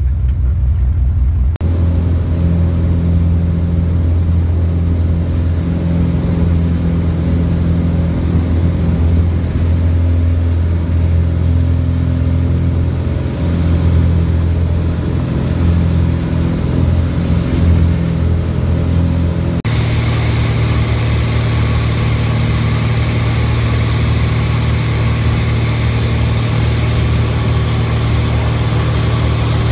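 Cessna Hawk XP's six-cylinder piston engine and propeller heard from inside the cabin, a steady loud drone. The sound changes abruptly about two seconds in and again about two-thirds of the way through, where the engine note jumps higher and gets brighter.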